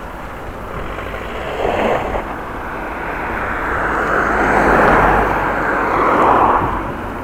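A passing motor vehicle: its tyre and engine noise swells over a few seconds and then fades, over the steady road noise of a bicycle ride.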